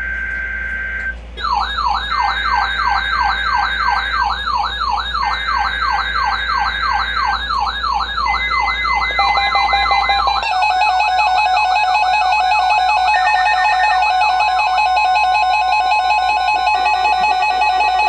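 NOAA weather radio Required Weekly Test setting off several weather alert receivers at once. Bursts of screeching SAME digital header tones come through, and about a second in a receiver's alarm starts a rapid warbling siren. About ten seconds in, more radios join with steady high beeping alarm tones, all sounding together.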